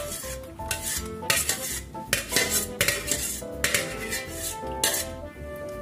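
Stainless steel pot and colander clanking and clattering against each other in a string of separate knocks, over background music.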